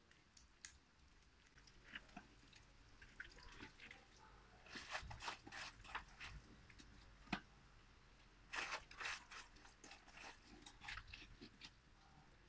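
Hands scooping and patting wet mud into a mound: faint, scattered squelching and crackling, busiest around five seconds in and again around nine seconds, with one sharp click a little after seven seconds.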